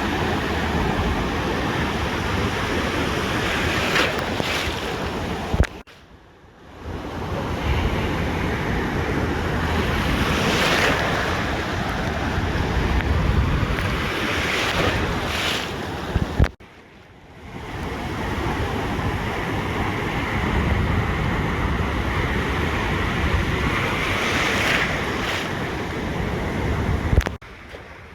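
Ocean surf washing onto a beach, with wind buffeting the microphone. The sound cuts out abruptly for about a second three times, near 6, 16 and 27 seconds in.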